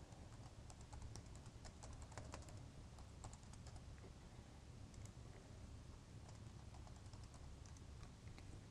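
Faint typing on a computer keyboard: a quick, irregular run of key clicks over a low steady hum.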